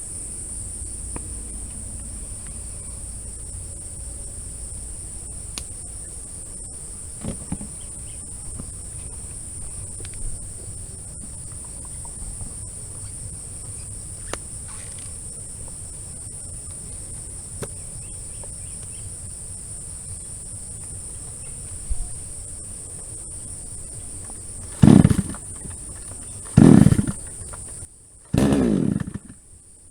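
Steady high-pitched chirring of crickets over quiet outdoor background. Near the end, a 22-inch JCK chainsaw is pull-started: its engine fires in two or three short loud bursts before it keeps running.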